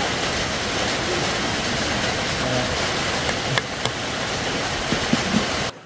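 Steady hiss of heavy rain, with a couple of faint clicks about three and a half seconds in; it cuts off suddenly just before the end.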